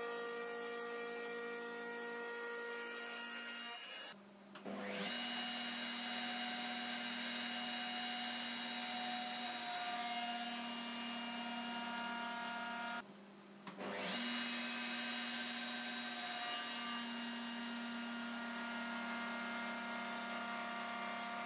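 Router running steadily while cutting a groove along a marked line, a steady motor whine with a few held tones. It drops out briefly twice, about four seconds in and again about thirteen seconds in.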